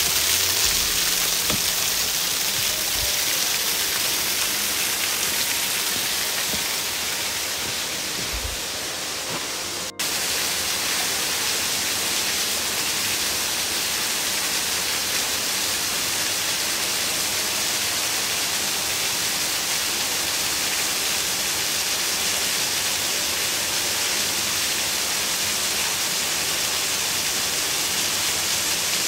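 Steady rush of a waterfall, a dense hiss of falling water. It fades a little at first, breaks off for an instant about ten seconds in, then carries on evenly.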